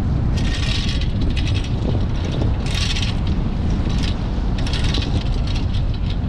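Wind buffeting the microphone in a steady low rumble on a boat's open bow, with choppy waves against the hull rising in hissing surges several times.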